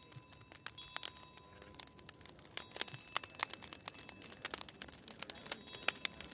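Bonfire crackling: a faint, irregular stream of sharp pops and snaps from the burning wood.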